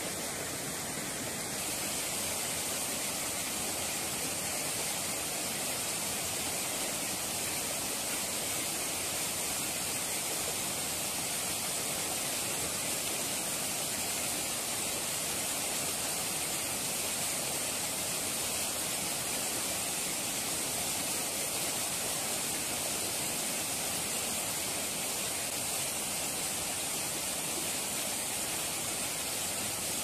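Steady rushing hiss of a small mountain-river cascade pouring over rocks into a pool.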